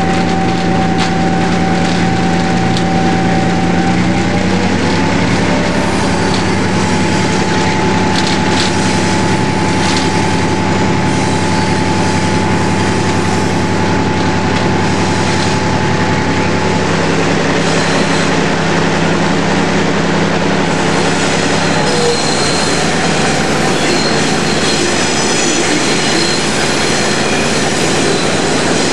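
EMD diesel locomotive running as the train rolls along, engine and rail noise together. The engine note steps up slightly about five seconds in and drops away about 22 seconds in, leaving wheel and rail noise with faint high squealing.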